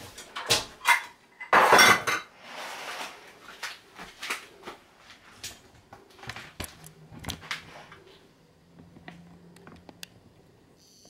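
Kitchen handling sounds: a run of clicks and knocks of utensils and containers on a countertop, the loudest and longest about two seconds in, then thinning to scattered light taps.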